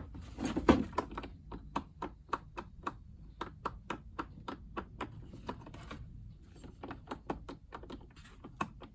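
Plastic and metal parts of a washing machine door hinge handled and worked open and shut: a run of light clicks and taps, a few a second, with a short pause about six seconds in. The hinge is slightly loose.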